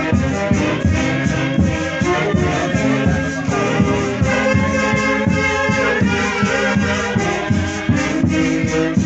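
Festival orquesta playing brass-led music with a steady, even beat.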